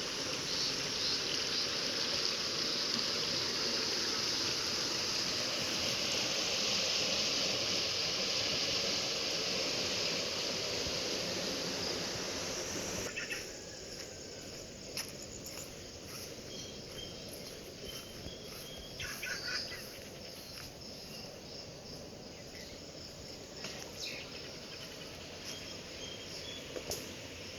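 Outdoor ambience dominated by a steady, dense high-pitched insect chorus. About halfway through it cuts abruptly to a quieter background with faint short chirps and a few soft clicks.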